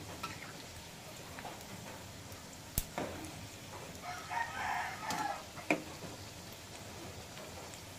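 A rooster crows once, about four seconds in, over the steady sizzle of pork fat frying in hot oil. A few sharp clinks of a metal ladle against the pan come before and after the crow.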